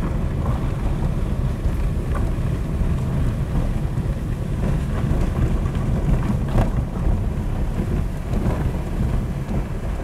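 Car driving slowly along a sandy dirt road: a steady low rumble of tyres and engine, with a brief knock about six and a half seconds in.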